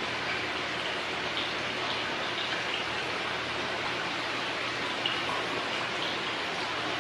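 Steady rush of flowing water with a few faint splashes scattered through it, one slightly sharper about five seconds in.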